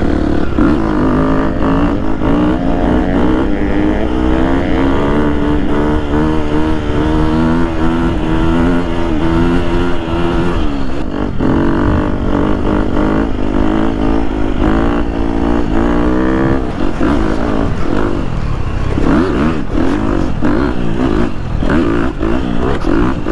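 Husqvarna FC 250 single-cylinder four-stroke dirt bike engine with an FMF exhaust, under way at speed. It revs up and shifts several times, drops sharply when the throttle is closed about ten seconds in, then pulls in quick, repeated bursts of throttle near the end.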